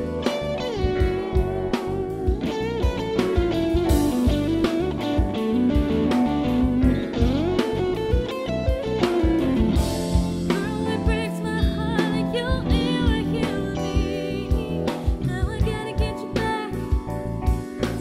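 A live band plays an instrumental break with no lyrics. A Fender Stratocaster-style electric guitar leads with a solo line full of string bends and vibrato, over bass and drums keeping a steady beat.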